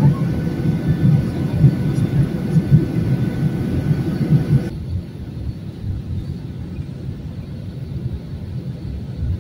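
Airliner cabin noise: a loud, steady rumble of the aircraft in flight. About halfway through it changes abruptly, the hiss dropping away and the rumble carrying on somewhat quieter.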